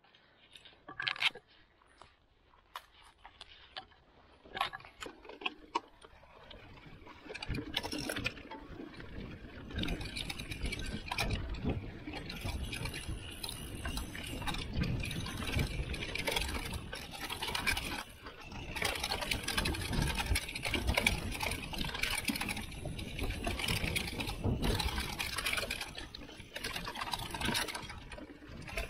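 Mountain bike on a forest dirt trail: a few sharp clicks during the first several seconds, then from about eight seconds in a continuous rushing and rattling of knobby tyres on dirt, the bike shaking over the ground and wind on the microphone, rising and falling with the terrain.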